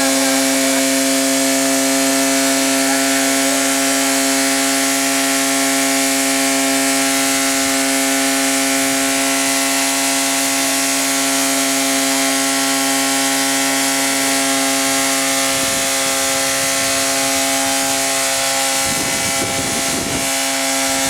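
Toyota car engine running with no radiator, held at steady revs so its pitch stays constant throughout.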